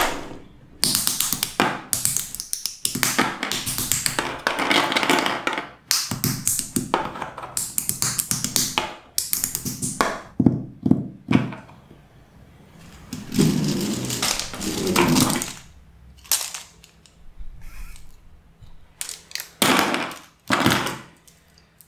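Plastic Mega Construx building bricks clattering and tapping on a wooden tabletop and clicking as they are snapped together, in quick runs of clicks that thin out in the second half.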